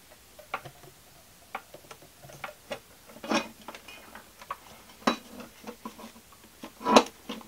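Irregular clicks and knocks of seat parts being handled while the folding rear middle seat is taken apart, with a few louder knocks, the loudest near the end.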